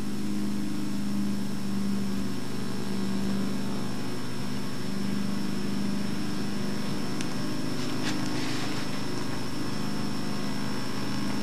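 Steady electrical mains hum with tape hiss, unchanging throughout, with a faint high whine over it.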